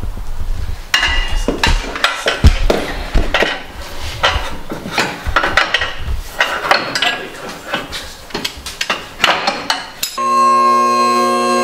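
Irregular metallic clanking and clinking as a steel clutch linkage rod is worked through the exhaust header tubes of a 1969 Pontiac GTO, with many sharp knocks. About ten seconds in, guitar music begins.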